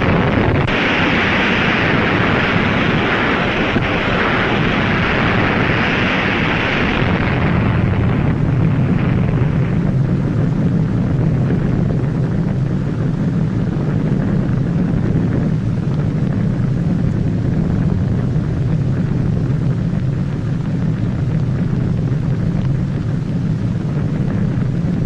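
Steady loud roaring rumble, hissing strongly for about the first eight seconds, then settling into a deep, even rumble.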